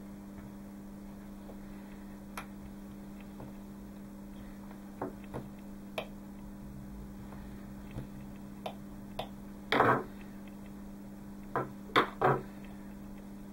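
Scattered light taps and clicks of small metal tools and brass rings against a wooden tabletop as rubber chamber packings are fitted into brass rings, with a louder clatter about ten seconds in and a few sharp knocks near the end, over a steady low hum.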